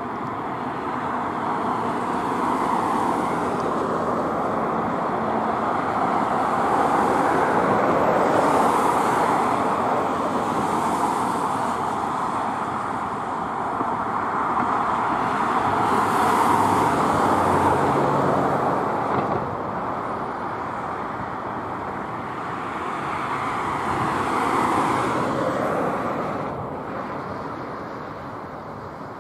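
The four GEnx-2B engines of a Boeing 747-8 Intercontinental climbing out after takeoff, heard from the ground: a steady, distant jet rumble with a faint hum in it. It swells and eases in slow waves and tails off near the end as the jet draws away.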